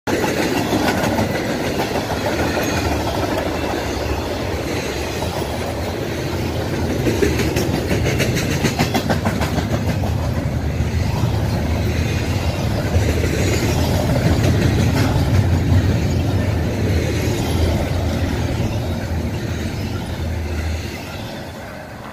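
Double-stack intermodal freight cars rolling past close by: a steady rumble with wheel clatter, and a run of rhythmic clicks over rail joints partway through. The rumble fades near the end as the last car goes by.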